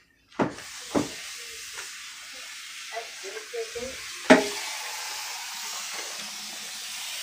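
Kitchen tap running into the sink as a rag is rinsed under it: a steady hiss of water starting about half a second in, with a few knocks against the sink, the loudest about four seconds in.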